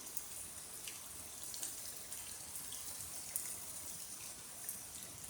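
Steady rain falling, a soft even hiss with scattered ticks of single drops landing close by.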